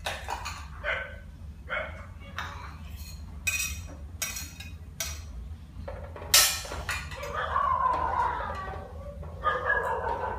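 Sharp clinks of a metal ladle and dishes, the loudest about six seconds in, then a rooster crowing in the second half, twice near the end.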